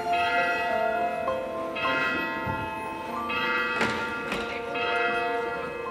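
Church bells pealing, a new strike every second or two, each ringing on over the last.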